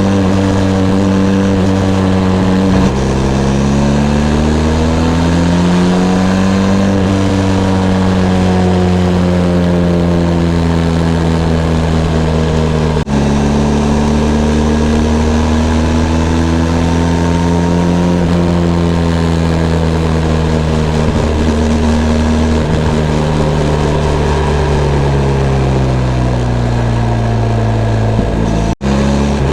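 Benelli TRK 502 X's 500 cc parallel-twin engine pulling on the move, its note dropping sharply about three seconds in at a gear change, then rising and slowly easing off with the throttle twice over. The sound breaks off for an instant around the middle and again near the end.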